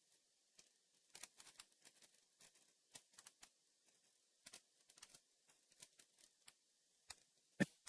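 Faint, scattered light clicks and crinkles of small plastic LEGO minifigure parts and their packaging being handled, with one louder sharp click near the end.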